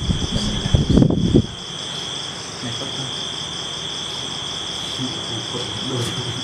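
Insects chirping in a steady chorus: a continuous high whine with a fast, even pulsing above it. Brief low murmurs of voices in the first second and a half.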